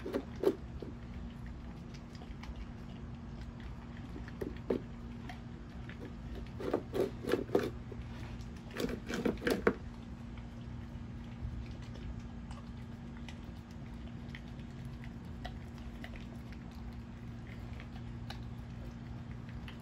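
A dog chewing and crunching food off the ground in bursts, the loudest about a third to halfway through, over a steady low hum.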